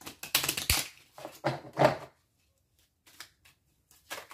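A plastic bag crinkling and a deck of fortune cards being handled and shuffled by hand. There is a dense run of rustling over the first two seconds, then a pause and a few light taps of cards near the end.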